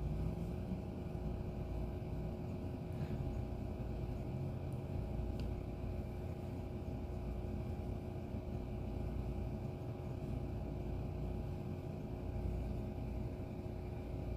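Steady background hum with a low rumble and a few faint steady tones, unchanging throughout.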